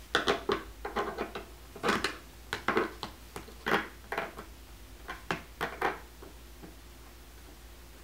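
Hands and pliers tightening a small bolt and nut on a plastic costume panel: irregular clicks, knocks and short scrapes of metal and plastic, stopping about six seconds in.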